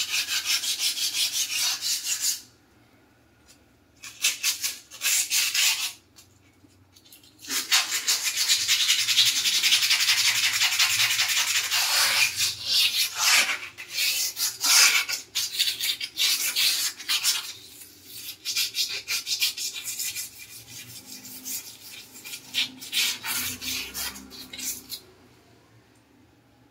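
Ceramic wall tiles being scrubbed by hand, with fast back-and-forth scratchy strokes in several bouts and short pauses between them. The longest bout runs through the middle, and the strokes get lighter and stop near the end.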